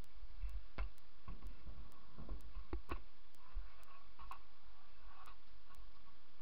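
A steady ticking about twice a second, with a low rumble of wind on the microphone. A few knocks and rattles, about a second in and again around two to three seconds in, come from a scooter moving on a perforated metal ramp deck.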